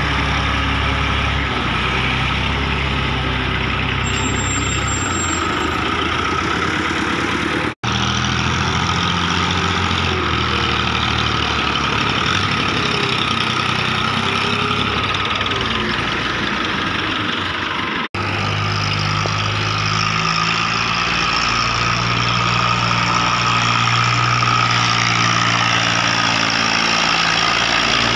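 Massey Ferguson 240 tractor's three-cylinder diesel engine running steadily while pulling a fully loaded soil trolley. The sound drops out for an instant twice, at cuts between clips.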